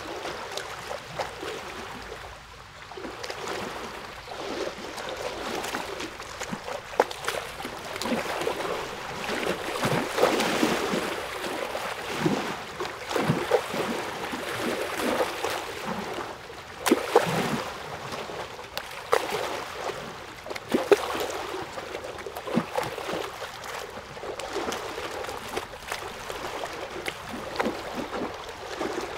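Water lapping and trickling, with many small irregular splashes.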